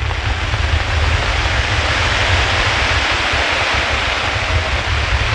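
Starmine fireworks barrage: shells launching and bursting so densely that the separate bangs merge into one continuous wall of noise, with a heavy low rumble underneath.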